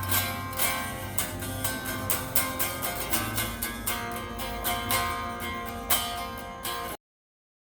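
Telecaster-copy electric guitar being picked, a quick run of single notes several a second, cutting off abruptly near the end.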